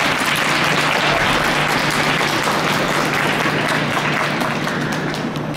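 Applause from a small number of spectators, a dense patter of hand claps that eases off near the end, over a low steady hum.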